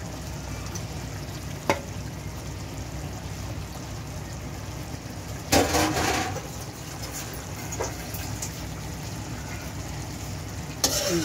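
Raw chicken pieces dropping into a large aluminium pot of hot tomato-and-yoghurt masala, with a wet splash and sizzle about five and a half seconds in. A metal slotted spatula clicks against the pot about two seconds in, over a steady low rumble.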